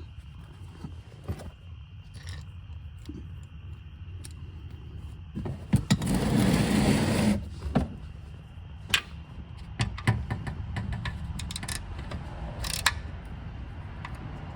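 Hand tools working a car's oil drain plug back into the oil pan: scattered metallic clicks and taps, with one louder scraping rush lasting about a second and a half, about six seconds in.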